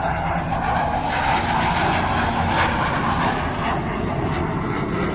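Fighter jet engine roar: a steady rushing noise over a deep rumble, swelling slightly between about one and three seconds in.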